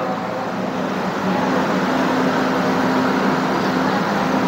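Steady railway-platform noise: a continuous rumble with a low, even electric hum.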